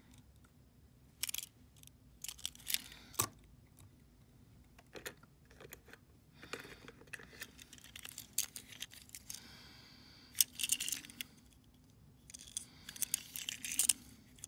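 Close handling noise of a small die-cast toy truck being turned over in the fingers: scattered light clicks, taps and rustles, coming in several short clusters.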